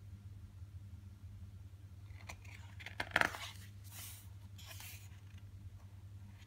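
A glossy photobook's pages being turned by hand: paper rustling, with a sharp flap of the page about three seconds in, then two more rustles as the page is swept flat.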